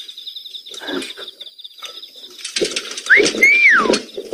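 A steady high insect trill with bird sounds over it: in the second half a loud whistled call that rises and then falls, over repeated low coos.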